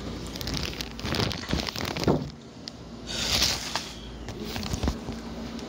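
Rustling and knocking handling noise from a handheld phone moving about a kitchen: a string of clicks and knocks, a short falling tone about two seconds in, and a brief hissing rustle a little after three seconds in.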